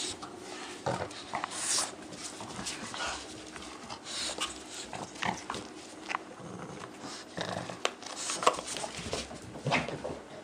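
Boston terrier making short, irregular dog noises while tugging and chewing a toy in play.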